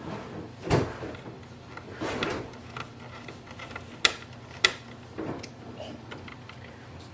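Plastic clicks and knocks from the printer's casing parts being handled and fitted back, with two sharp clicks a little over half a second apart about four seconds in.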